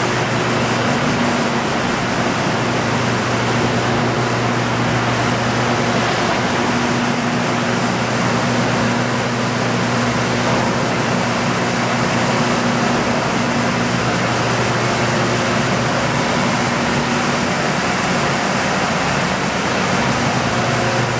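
Hydroelectric turbine-generator running: a steady low hum under an even rushing noise.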